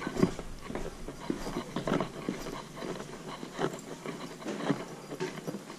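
A series of irregular knocks and taps, a few each second.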